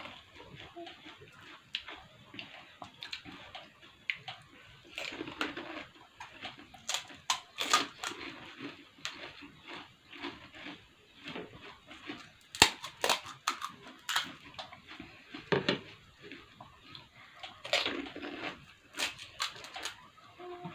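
People eating pani puri fast: irregular crunching and chewing of the crisp hollow puri shells, with scattered sharp clicks, the loudest about halfway through.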